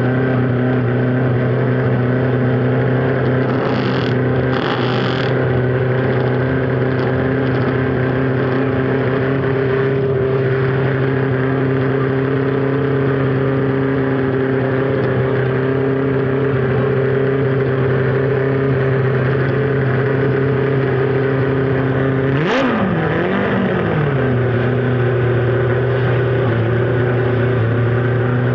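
Honda CB450 Black Bomber's parallel-twin engine idling steadily, with one quick blip of the throttle about three-quarters of the way through; the pitch rises and drops back within about a second and a half.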